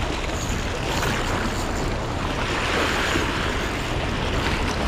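Sea swell washing and foaming over rocks, one wave surging through the middle, with wind rumbling on the microphone.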